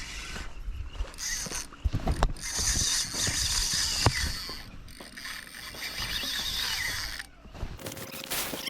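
Fishing reel clicking with a dense mechanical ratchet for several seconds, then stopping abruptly near the end.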